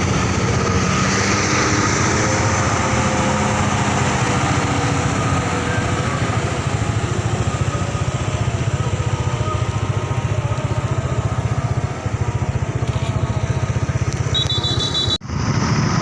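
Motorcycle running on the road with heavy wind and traffic noise, a rapid low pulsing under a steady rush. Near the end a short high beep sounds, then the sound cuts out for an instant.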